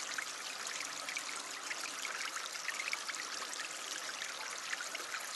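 Shallow water running down a narrow concrete channel and splashing over stones, a steady babble.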